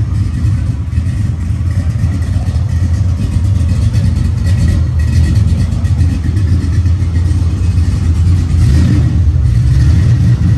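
V8 engine of an LS-swapped Chevrolet S10 pickup idling, a steady low exhaust rumble.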